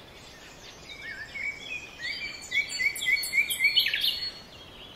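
Tropical forest birds singing: scattered chirps, then a run of short rising notes at about four a second with other calls over it, the calls loudest a little before four seconds in.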